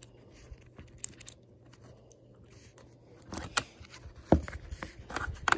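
Plastic magnetic building blocks clicking and knocking as they are handled and pressed together, in scattered clicks with a louder knock a little past halfway.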